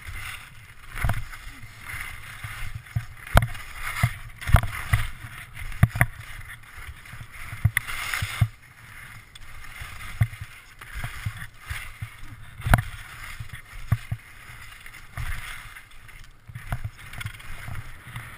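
Skis scraping and hissing over chopped-up, packed snow as the skier turns down a narrow trail, with frequent sharp knocks from the bumps and pole plants.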